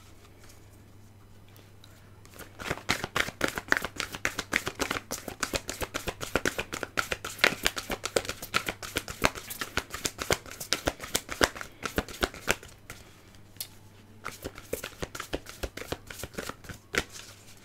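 Oracle card deck being shuffled by hand, a quick run of rapid card slaps and flicks that starts about two and a half seconds in and thins out near the end. A low steady hum lies underneath.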